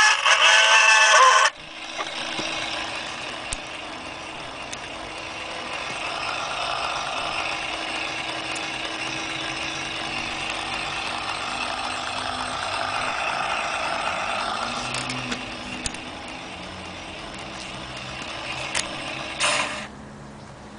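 Wind-up gramophone's spring motor and spinning turntable whirring steadily, with gear noise; record music cuts off about a second and a half in. Just before the end there is a brief scrape and the whir stops as the brake lever is worked.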